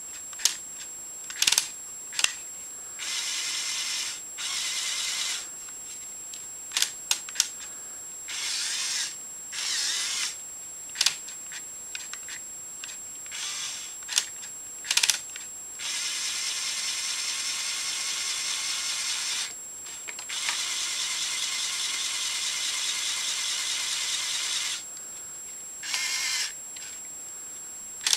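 LEGO Technic 8043 excavator's small electric motors whirring through their gearing in repeated runs of one to several seconds, the two longest about four seconds each in the second half. Sharp plastic clicks come between runs as the infrared remote control levers are pushed and released.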